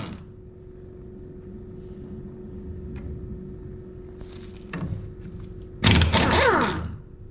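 Pneumatic impact wrench hammering the lower sprocket nuts off a John Deere 444 corn head row unit: a short burst about four and a half seconds in, then a loud burst of about a second near the end whose pitch falls as the tool winds down. A steady low hum runs underneath.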